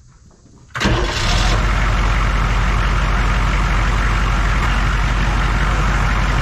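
Humvee V8 diesel engine starting up about a second in, catching almost at once with a brief loud burst, then settling into a steady idle.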